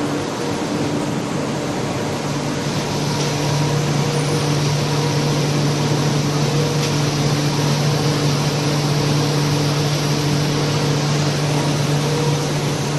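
Vacuum pump running steadily for glass-lamination bags: a constant mechanical drone with a low hum that strengthens slightly a second or two in.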